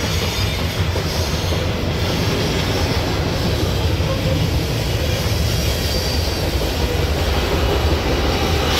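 Coal hopper cars of a freight train rolling past on the track overhead: a steady rumble of steel wheels on rail.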